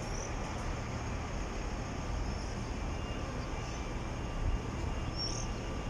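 Steady city background noise, a low traffic-like rumble with a general hum, with a few short high chirps about five seconds in and near the start.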